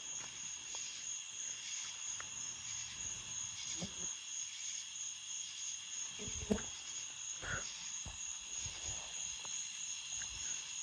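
Steady high-pitched drone, like an insect chorus, with a few soft knocks, about six and a half and seven and a half seconds in. No gunshot.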